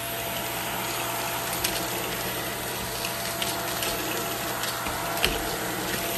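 Samsung Jet 60 Fit cordless stick vacuum running steadily, a whooshing suction noise with a steady whine, broken by a few sharp clicks.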